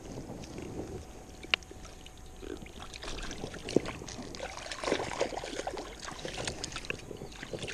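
Water splashing and sloshing irregularly, with small clicks and knocks mixed in and one sharp click about a second and a half in.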